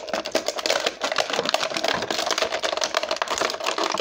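Clear plastic blister packaging crackling and crinkling in a rapid, uneven run of clicks as it is bent and pulled by hand to free an action figure.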